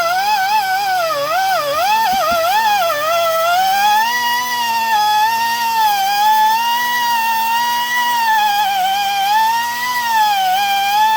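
Small rotary tool spinning a 60-grit sanding bit against a geode: a steady high whine whose pitch sags and wavers as the bit is pressed into the stone. There are a few light knocks about two seconds in.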